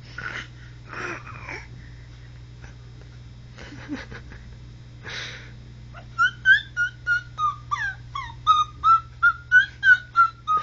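Baby babbling: a fast run of high-pitched 'ta' syllables, about three a second, begins about six seconds in, after a few softer breathy sounds.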